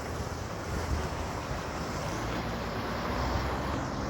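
Steady rumble of vehicle noise, with a faint falling hiss near the end as something passes.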